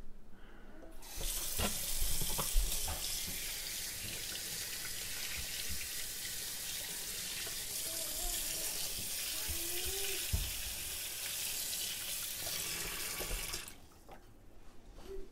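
Kitchen faucet running into a stainless steel sink while a whole brook trout is rinsed under the stream, with a few light knocks. The water comes on about a second in and is shut off near the end.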